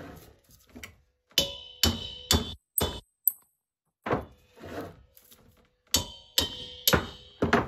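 A hammer strikes an old steel propane tank at its valve about ten times, in two quick bursts. Each blow rings briefly off the tank's metal. The blows are meant to knock loose the valve, whose threads are sealed with Loctite.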